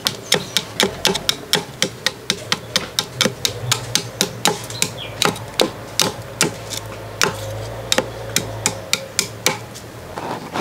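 A curved billhook knife chopping the end of a thin areca-wood stick to a point against a wooden log: sharp, evenly spaced chops, about three to four a second.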